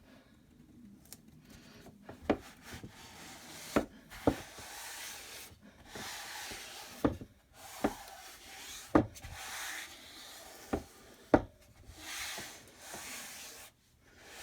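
Hands rubbing and pressing a sticky adhesive stencil transfer against a surface, as in fuzzing it on a towel or smoothing it down. The rubbing noise comes and goes, with sharp clicks and pops roughly every second.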